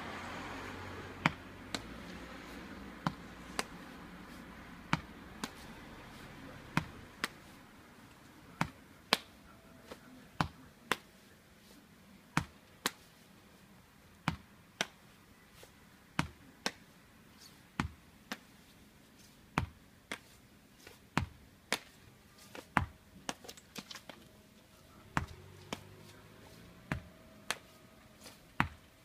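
A baseball in wall-ball catching practice: sharp smacks, mostly in pairs about half a second apart as the ball rebounds off the wall and is caught in a leather glove, repeating every one to two seconds.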